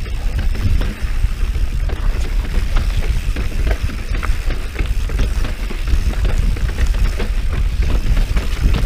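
Mountain bike riding over rocky singletrack: a steady low rumble of wind and vibration on the microphone, with many small knocks and rattles from the tyres, frame and chain clattering over rock and dirt.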